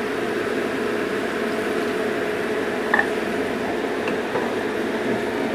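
Spice paste and liquid sizzling and bubbling steadily in a frying pan as coconut milk is scraped in from a wooden bowl with a wooden spatula. A small knock comes about three seconds in.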